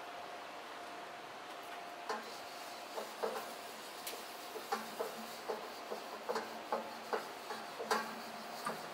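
A folded cloth rubbed around the inside of a hot, steaming carbon steel wok, with irregular short scuffs and clicks starting about two seconds in, over a faint steady hiss.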